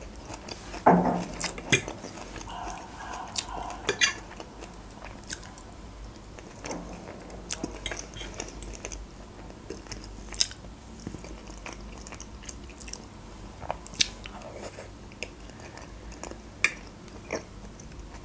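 Close-up mouth sounds of a person chewing and eating baked julienne, with sharp clicks here and there, among them a fork against the glass baking dish.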